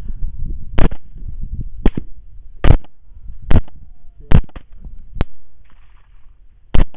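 Six rifle shots fired at feral hogs, at uneven gaps of about a second, each a sharp crack with a short low rumble after it.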